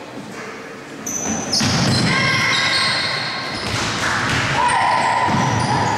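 Basketball game on a hardwood gym floor: the ball dribbling, with voices calling out and high squeaks. Everything gets much louder about a second and a half in, once play starts up again.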